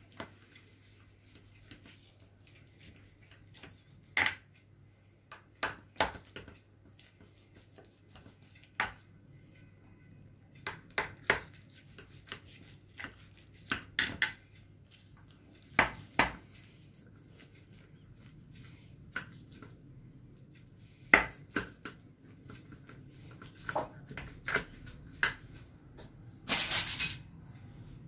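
A metal knife and spatula cutting through baked lasagna in a glass baking dish, giving scattered clicks and knocks as the metal hits the glass, with a longer scrape near the end.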